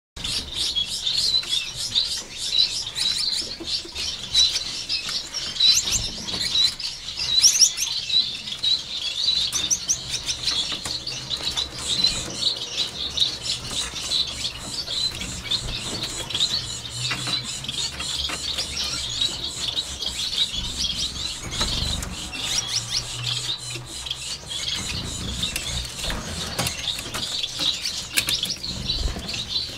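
Small aviary finches chirping: a dense, continuous chatter of many short high calls overlapping one another, with a few quick rising calls about six to eight seconds in.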